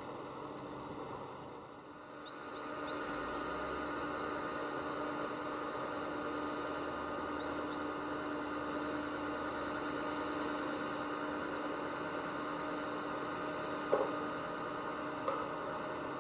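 Steady outdoor hum with a few fixed tones running under it, broken twice by a short run of quick, high bird chirps, about two seconds in and again about seven seconds in. Two faint clicks come near the end.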